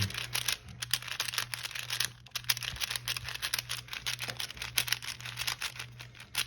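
Plastic puzzle cube's layers being turned quickly by hand, a rapid run of clicks and clacks as the cube is scrambled. A steady low electrical hum runs underneath.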